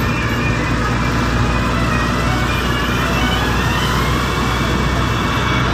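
Inside a moving car's cabin: the engine runs with a steady low hum under constant tyre and road noise.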